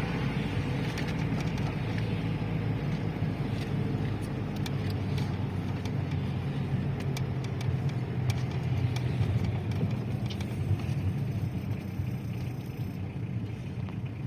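Car driving along a road, heard from inside the cabin: a steady engine and tyre rumble.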